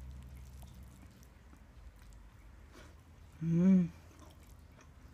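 A woman's short closed-mouth "mmm" hum while chewing, about half a second long and rising then falling in pitch, a little over three seconds in; around it, faint sounds of chewing and of pastry being pulled apart by hand.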